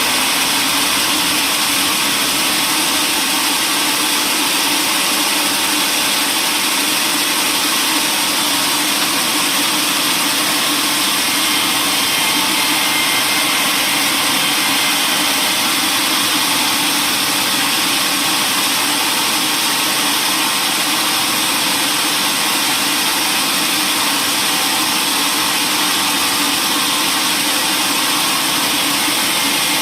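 Woodworking machinery running steadily: a constant, even mechanical noise that does not rise or fall.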